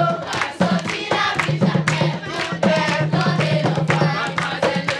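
Music: a choir singing over a held low note, with percussion.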